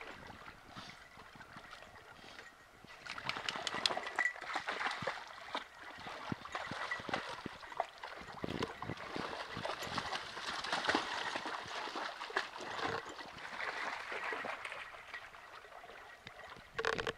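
Dogs wading and splashing through a shallow creek, with water trickling over rocks. The splashing picks up about three seconds in and comes as many irregular small splashes.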